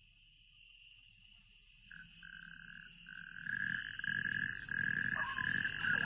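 Frogs croaking in a night-time sound effect, with a steady high insect-like trill behind them. The effect fades up, growing louder from about three seconds in.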